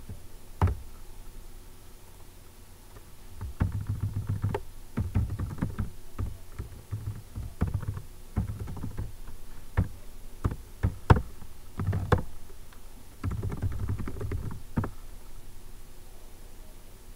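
Typing on a computer keyboard: bursts of rapid keystrokes, with several single sharper key strikes between them.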